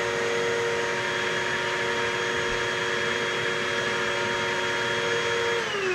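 Upright vacuum cleaner running steadily with a whining motor hum, then switched off near the end, its pitch falling as the motor spins down.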